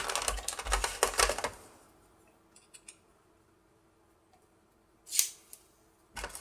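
Small screwdriver and plastic parts of an LED disco light being worked by hand: a flurry of clicks and rattles for the first second and a half, then almost quiet, a brief scrape about five seconds in, and clicking again near the end.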